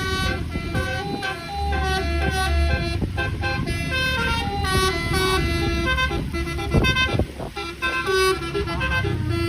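Basuri "telolet" multi-tone bus horn playing a melody of short notes that step up and down in pitch, over the low rumble of the bus engine.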